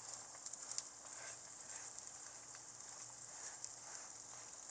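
Flattened patty of fish paste frying in canola oil in a pan: a faint, steady sizzle with scattered small crackles.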